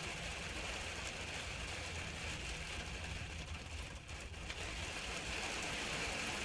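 Steady background of a rainy street: an even hiss over a low rumble, dipping briefly about four seconds in.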